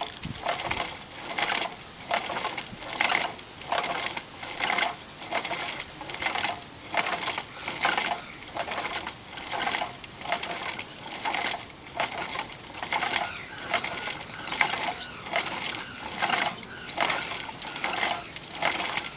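Lacquered bowl turning on a cord-driven wooden lathe while it is sanded by hand: a rhythmic rubbing swish, a little more than one stroke a second.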